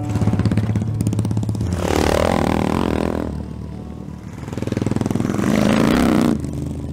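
Motorcycle engines revving and riding by, with a rise about two seconds in and a louder pass near the end. The engine sound cuts off suddenly about six seconds in.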